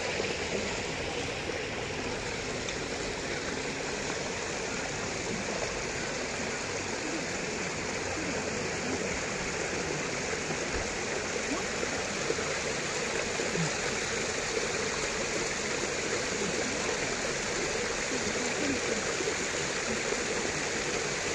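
Water running steadily over rocks in a shallow stream: an even, unbroken rushing.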